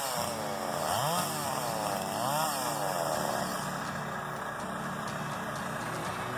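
An engine revving up and down a few times, then settling to run at a steady speed.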